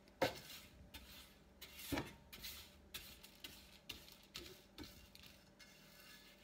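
Metal spoon scraping and tapping on a round metal tray, pushing breadcrumbs into a pile: a run of short, irregular scrapes and clicks, the loudest just after the start and about two seconds in.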